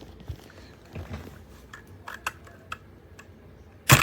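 Scattered light plastic clicks and taps from a keycap puller being worked on a mechanical keyboard's keycaps, with one sharp, loud click near the end.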